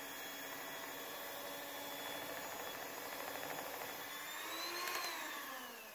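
Electric hand mixer with dough hooks running as it kneads a rye-wheat dough, a faint steady motor whine. The pitch rises slightly about four seconds in, then sinks away near the end.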